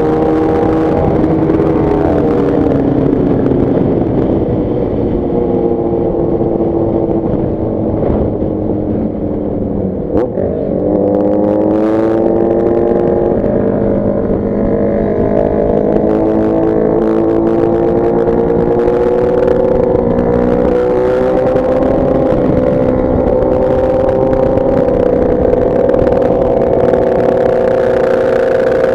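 Motorcycle engine running at road speed. Its pitch sags as it slows about ten seconds in, then climbs again as it accelerates and holds, over a steady rush of wind noise.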